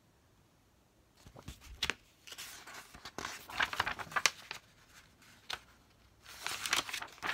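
Pages of a large picture book being turned by hand: paper rustling and crinkling in several short spells starting about a second in, with a single sharp tap partway through.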